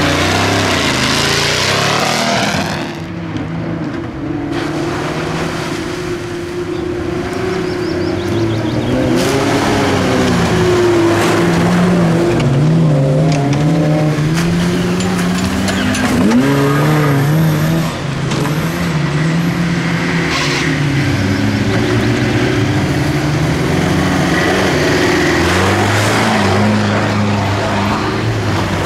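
Off-road 4x4 engines revving under load as the vehicles push through deep mud, the pitch repeatedly rising and falling with the throttle.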